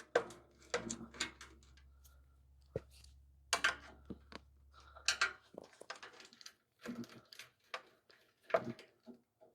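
Irregular clicks, clacks and knocks of tools and metal parts being handled while a machine is taken apart, over a low steady hum that stops about five seconds in.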